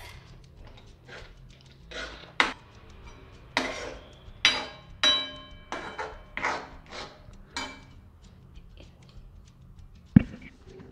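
A metal spoon knocking and scraping against a metal pan while stirring a thick corn and spinach white sauce. About ten uneven clinks and knocks, a few of them ringing briefly.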